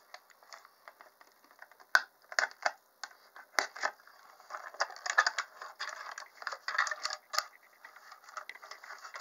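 Hand pruner with a ratchet mechanism being handled: a run of irregular sharp clicks and scraping, starting about two seconds in and thickest in the middle.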